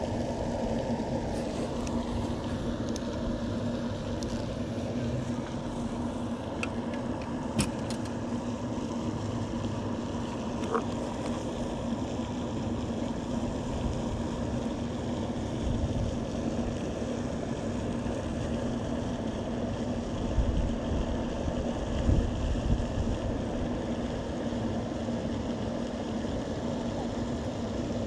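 Steady mechanical hum with a constant low tone, like a motor running. A few faint clicks sound in the first third, and low rumbles come about three-quarters through.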